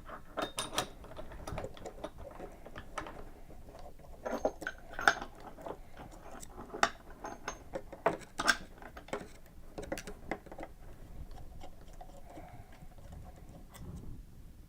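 Hands wiring SNAP-LOCK limit switches: irregular clicks, taps and light metallic clatter of switch parts, wires and tools being handled, thinning out in the last few seconds.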